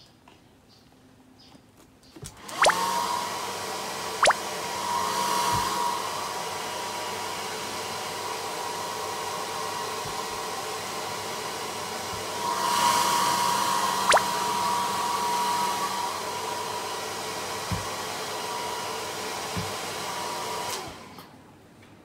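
Hand-held hair dryer switched on about two and a half seconds in, running with a steady whine over its rushing air, growing louder twice for a few seconds, then switched off about a second before the end. Three very short downward-sliding blips cut in over it.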